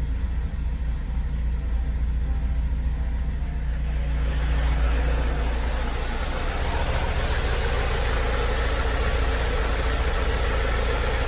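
BMW E46 316ti's four-cylinder Valvetronic engine running just after an engine flush and fresh oil. It runs with a steady low rumble, and about four seconds in it turns louder and noisier.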